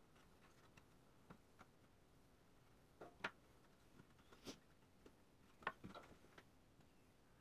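Near silence with a few faint, short taps and clicks, scattered through, as a thin pine trim strip is handled and fitted against a plywood tabletop.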